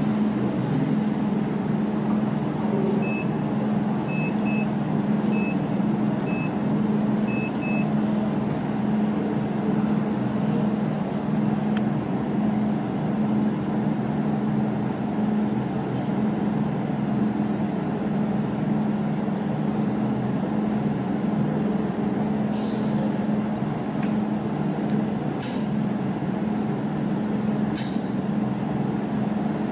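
Desktop jewelry fiber laser welding machine running with a steady low hum. A string of about eight short electronic beeps comes a few seconds in, and three sharp snaps come in the last third.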